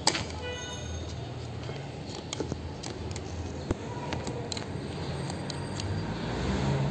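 Light taps and rattles of a red plastic toy as a cat paws at it: scattered sharp clicks over a steady low hum, with a short ringing tone just after the start.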